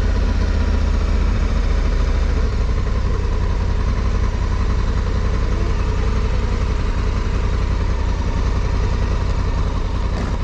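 Honda Africa Twin CRF1100L's parallel-twin engine running at low speed on a wet road, with a steady low rumble and hiss from the tyres on wet tarmac. The rumble eases a little after about two and a half seconds as the bike slows behind traffic.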